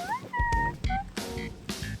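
Background music with a steady drum beat and a lead melody whose notes slide upward and then hold.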